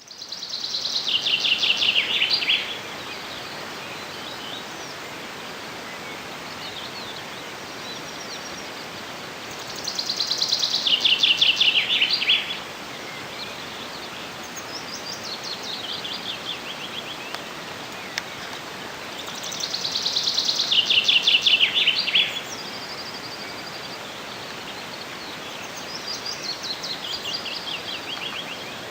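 Outdoor birdsong: a loud songbird song, a falling run of quick notes about two and a half seconds long, repeats about every ten seconds, three times and again at the end. Fainter songs of other birds come between, over a steady background hiss.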